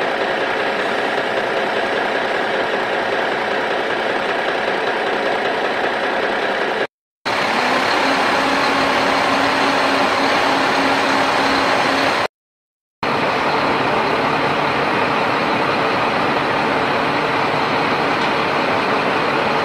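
Steady vehicle engine running sound, an even noisy drone that stops dead twice, about seven seconds in and again about twelve seconds in, where the clips are cut.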